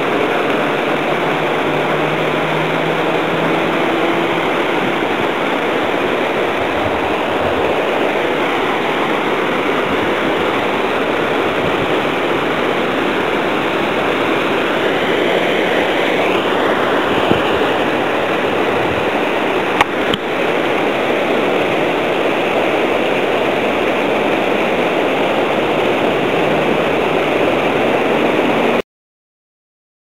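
Muddy river water rushing over a shallow riffle, a steady loud rush, with a few sharp clicks past the middle. It cuts off suddenly near the end.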